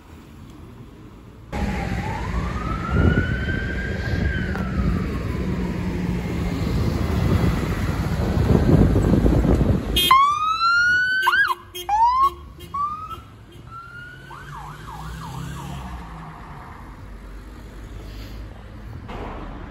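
UK police sirens in two takes. About one and a half seconds in, a police van's siren winds up and slowly falls over loud engine and road rumble. After a cut at about ten seconds, an unmarked Hyundai i30 police car's siren gives a series of short rising whoops and a brief fast warble, then only quieter traffic remains.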